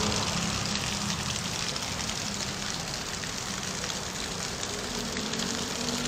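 Rain falling on paving: a steady hiss with faint scattered ticks of drops.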